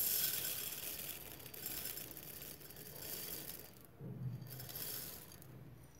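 Puffed rice (muri) poured from a plate into a glass bowl, the dry grains rattling into the glass and onto the table. The pour thins out after about three seconds, and a second, shorter rush follows about four seconds in.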